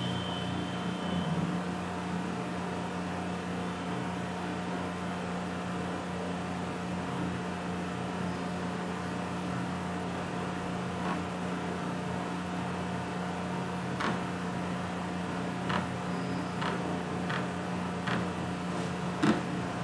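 Steady electrical hum with faint background hiss, and a few light clicks or taps in the second half, about five of them.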